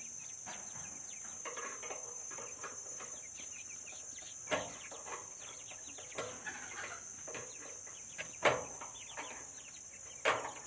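Village chickens clucking and calling with many short quick notes, over a steady high-pitched hiss. A few sharp clicks cut through, the loudest about eight and a half and ten seconds in.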